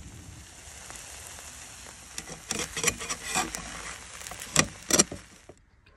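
An omelette of eggs and greens sizzling in a pan with a steady hiss. From about two seconds in, a metal slotted spatula scrapes and clicks against the pan several times as it is worked under the omelette, the two loudest scrapes near the end, and then the sizzling cuts off suddenly.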